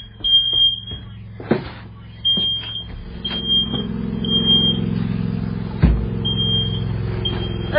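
Smoke alarm beeping a high tone in sets of three with a pause between sets, set off by oil smoke from a tractor. An engine runs steadily underneath, getting louder a few seconds in, and there are two sharp knocks.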